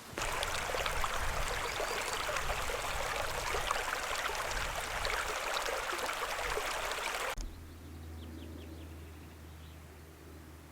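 Mountain stream water rushing, loud and steady, then cut off abruptly about seven seconds in; after it, only a much quieter low steady hum.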